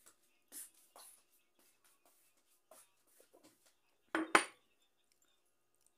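Crockery clattering: two sharp clinks close together about four seconds in, against a few soft, short eating sounds of hand and mouth at a table.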